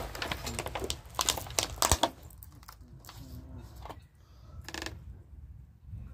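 Close handling noise: a run of short clicks and crinkles, loudest about a second or two in, then a few quieter ticks.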